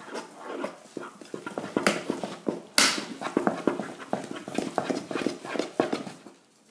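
Wooden spoon vigorously beating thick choux pastry dough in a saucepan: rapid, irregular knocks and scrapes of the spoon against the pan, with two louder knocks about two and three seconds in. This is the stage where the flour is beaten into the hot water and butter until the dough is smooth. The beating stops just before the end.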